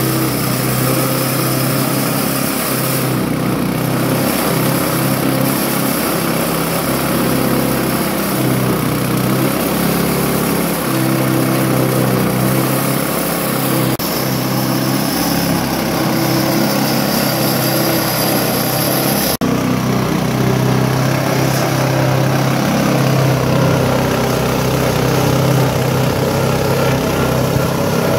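Small single-cylinder petrol engine running steadily, belt-driving a lemongrass and galangal chopping machine as lemongrass stalks are fed through its cutter, with a brief break about two-thirds of the way in.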